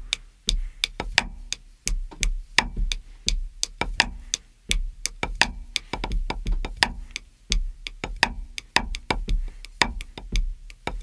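Drum kit played in a drum-and-bass style groove: kick drum thumps and a fast run of stick strokes, with quiet snare ghost notes placed just before loud backbeats, the ghost note played as an upstroke that lifts the stick for the accent.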